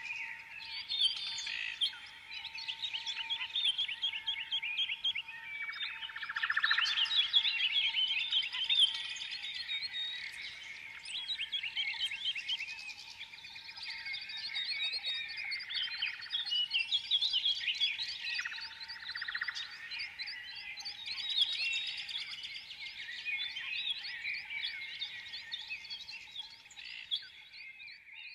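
Songbirds singing: a continuous, dense run of rapid chirps and trills.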